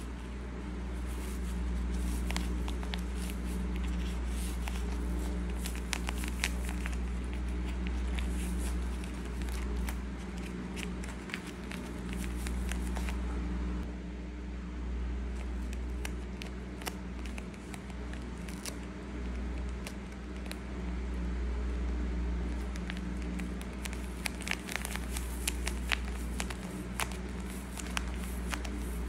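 Paper and clear tape crinkling and crackling under the fingers as a small stuffed paper squishy is handled, pressed and taped: scattered small clicks and rustles, busier near the start and again toward the end, over a steady low hum.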